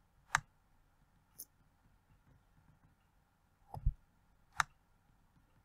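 Laptop touchpad left-click button clicking a few times, as separate sharp clicks with long gaps between them. One of the clicks comes with a low knock.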